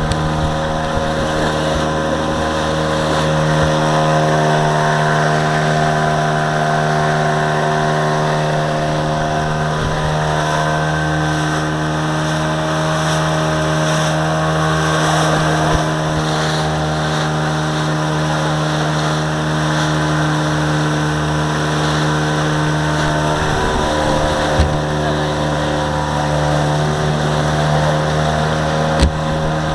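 Small open motorboat's engine running at a steady speed while under way, one even drone, with water rushing past the hull.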